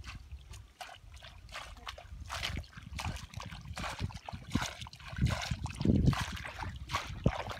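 Muddy shallow water splashing and sloshing as hands scoop and churn through wet mud, in irregular wet splashes, loudest about five to six seconds in.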